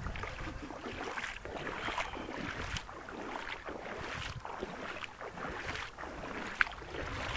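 Stock Oxidean Dominator RC boat running out on the water, heard faintly under wind on the microphone, with irregular short splashing noises.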